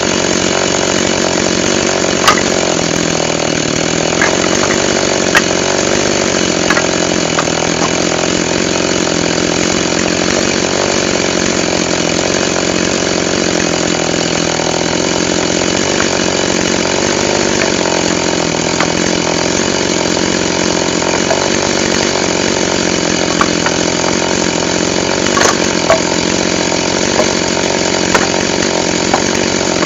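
Two-stroke chainsaw running steadily, with a few sharp clicks scattered through.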